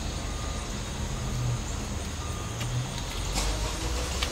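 A motor vehicle's engine running with a steady low rumble under outdoor background noise, with a couple of light clicks near the end.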